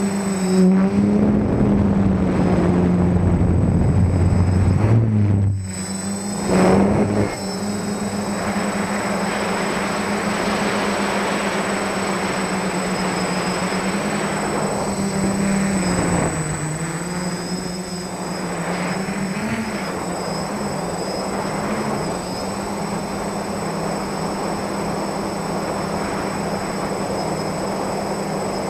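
The brushless motors (SunnySky 980KV) and 10x4.5-inch propellers of an F450 quadcopter in flight, heard from its onboard camera: a steady buzzing hum whose pitch wavers as the motor speeds shift. There is a brief drop and then a short surge about five to seven seconds in, and a thin high whine sits above it all.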